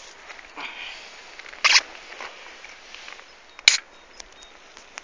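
Handling noise from a camera held against a jacket: fabric rustling, a short scrape about one and a half seconds in, and a sharp click a little past the middle followed by a few lighter ticks.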